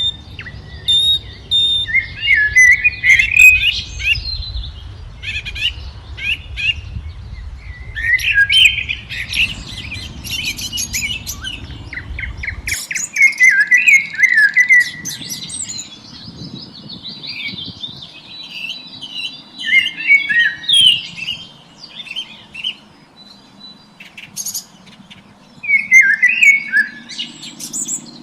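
Several wild songbirds singing and chirping in a morning chorus: overlapping short, varied phrases and quick trills, one after another. A low rumble sits underneath for the first half and cuts off suddenly.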